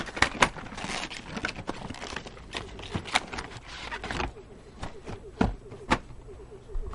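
Cardboard retail box being opened by hand: sliding and scraping cardboard with sharp clicks and taps, thinning out after about four seconds to a few separate knocks.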